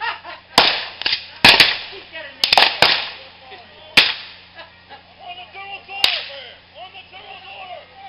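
Black-powder muskets firing blanks in a ragged series of sharp cracks, about eight shots in the first six seconds, with several fired close together around one and a half and two and a half seconds in.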